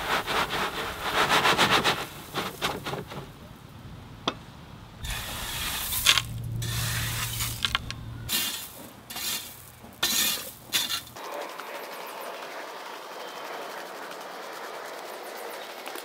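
Crushed gravel pouring from a tipped wheelbarrow for the first couple of seconds, then a metal rake scraping and dragging through the gravel in irregular strokes, with stones clinking. The last few seconds are quieter.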